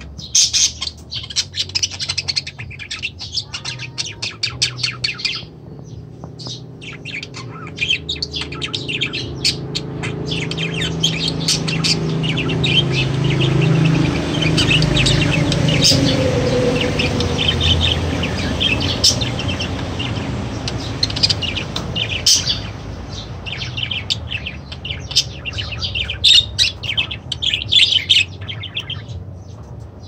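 Caged lovebirds and budgerigars chirping, many quick high chirps in runs that pause briefly. A low rumble swells and fades in the middle.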